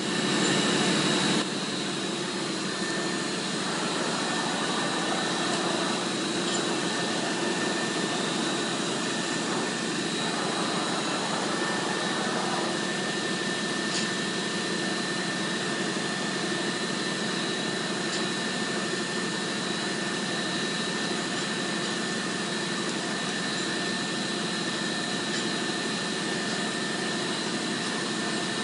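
FMS ISX-32 vertical machining center running steadily, a constant mechanical hum with a high, even whine, slightly louder for the first second or so.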